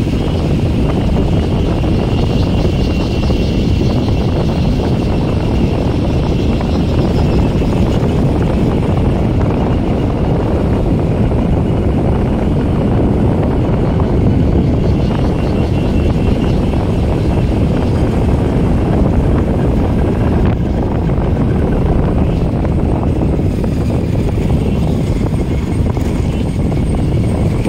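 Honda Dio scooter being ridden at a steady road speed: a constant rush of wind over the microphone, heaviest in the low end, with the scooter's running engine under it.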